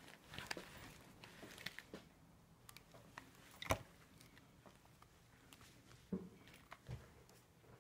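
Faint handling noise from a phone being carried and moved about: scattered small clicks and rustles, one sharper click about halfway through and a couple of soft thumps near the end.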